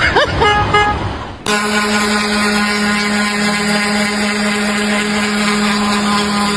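Short repeated vehicle-horn toots over voices, cut off about a second and a half in by a steady, even machine drone.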